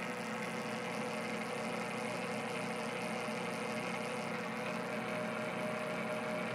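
South Bend 9A metal lathe running steadily: an even motor-and-gearing hum with a few steady tones, as it turns during a thread-cutting job.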